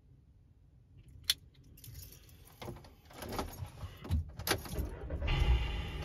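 A bunch of keys jangling and clicking as the key is handled and put into the ignition, then, about five seconds in, a van's engine starts and settles into a steady low running sound.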